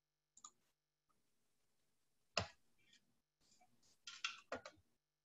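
Near silence, broken by a few brief clicks: one sharp click about two and a half seconds in, then three or four fainter ticks close together about four seconds in.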